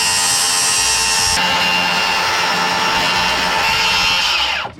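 Electric circular saw running steadily as it slowly cuts across the bottom of a solid-core door, then winding down with a falling pitch near the end once the trigger is released.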